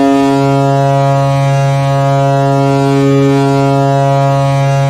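Kahlenberg S-203CV goal horn sounding one long, steady, low blast, signalling a goal.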